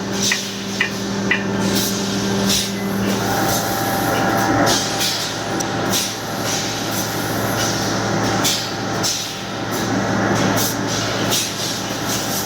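Electric air compressor running with a steady hum and hiss, with irregular clicks and knocks over it.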